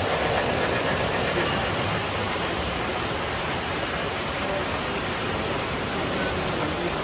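O gauge model trains rolling past on metal track, a steady rumbling whir of wheels and motors as a long intermodal container train goes by.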